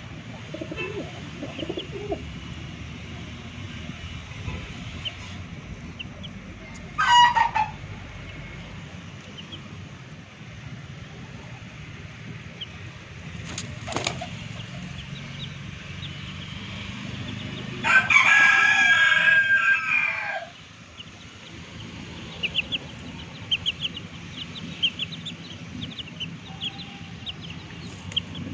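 A rooster crows once, long and loud, about two-thirds of the way through, after a shorter call about seven seconds in. Chicks cheep in short high peeps near the end, and there is a single sharp click near the middle.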